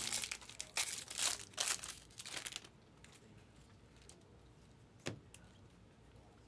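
Plastic-foil wrapper of a Bowman Draft Jumbo baseball card pack crinkling and tearing as it is ripped open, in a quick run of bursts over the first two and a half seconds. Then quiet as the cards are handled, with a single short tap about five seconds in.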